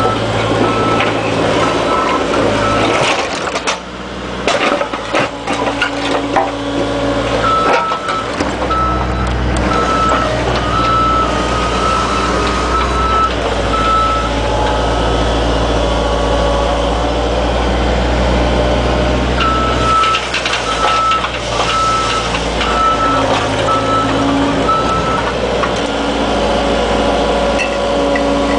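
Excavator's diesel engine running under load while its travel alarm beeps over and over in three stretches as the machine tracks. Clanks and knocks of the tracks and bucket come in between, thickest between about three and eight seconds in.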